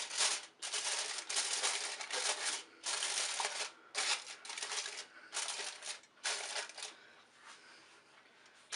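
Aluminium foil crinkling in a series of short bursts, about one a second, as hands press and tuck it over a tray in an air fryer basket; it dies down for the last couple of seconds.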